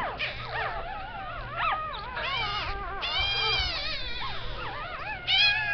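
Two-day-old Shih Tzu puppies crying: high, wavering squeals and whimpers, several overlapping one after another, with a louder cry near the end.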